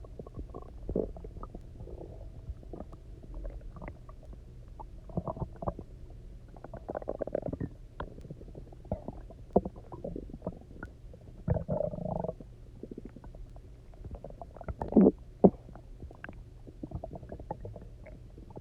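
An empty stomach rumbling and gurgling, hungry after a day without food and sloshing with water just drunk. The gurgles come irregularly, with longer bouts about seven and twelve seconds in and the loudest pair close together about fifteen seconds in.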